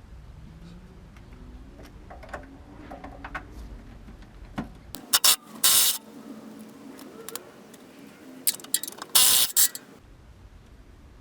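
Tool work on exhaust fasteners under a car: scattered clicks and clanks, then two spells of loud, short mechanical bursts, about five seconds in and again about nine seconds in.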